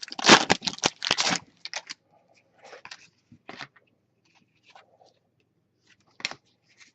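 Foil trading-card pack wrapper crinkling and tearing loudly for the first second and a half, followed by faint scattered rustles and clicks.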